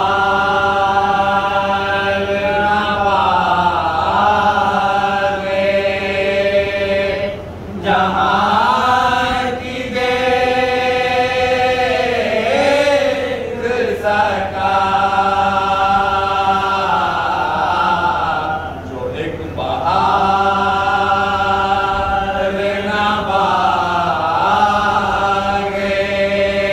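A group of men chanting a devotional ziyarat recitation in chorus, led by one reciter. The phrases are long and drawn out, gliding in pitch, with brief breaks between them.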